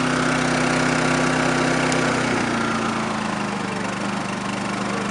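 Champion 3400-watt inverter generator running steadily under an electrical load; its engine note drops slightly in pitch and loudness about two to three seconds in.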